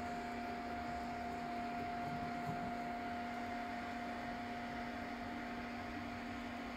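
Steady whir of the cooling fans on two powered but idle Ender 3 V2 3D printers, with a constant hum under it.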